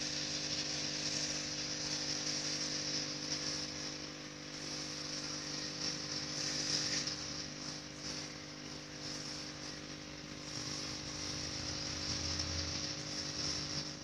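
Steady electrical mains hum from aquarium-room equipment, with a high hiss over it that swells and fades every few seconds.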